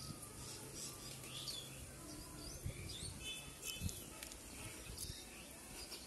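Small birds chirping repeatedly in the background over a low steady hum, with two soft knocks near the middle.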